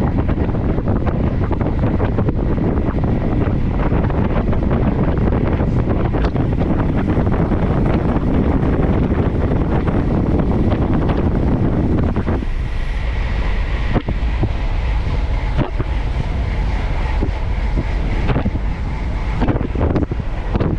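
Wind buffeting a GoPro Hero 11's microphone at speed on a fast descent, a loud, steady rumble. About twelve seconds in, the low rumble eases and a faint steady high whine comes in, with a few light clicks.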